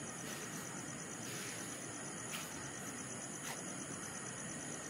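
Insects trilling steadily in a continuous high-pitched chorus, with two faint clicks about two and three and a half seconds in.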